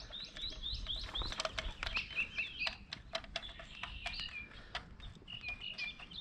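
Small birds chirping in quick repeated notes. Irregular light metallic clicks and taps run through the same stretch as the modified delivery valve holder is threaded into the P-pump.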